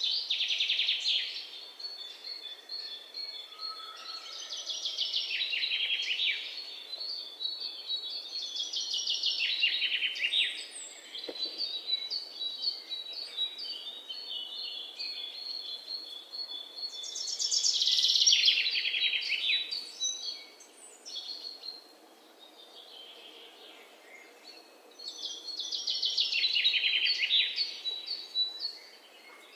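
Songbirds singing: loud, fast trilled phrases that fall in pitch, each lasting a second or two and coming back every four to eight seconds, with thinner high chirps and held notes in between.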